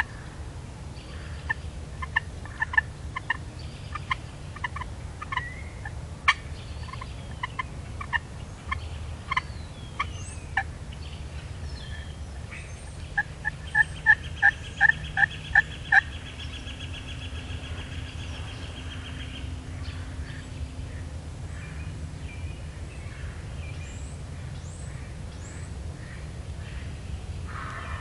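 Wild turkeys gobbling and calling: short, sharp notes come irregularly through the first ten seconds, then a quick run of about seven louder ones around the middle.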